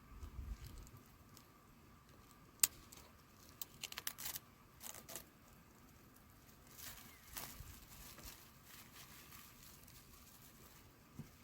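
Scattered light clicks and rustling, like things being handled, with one sharp click a little over two seconds in.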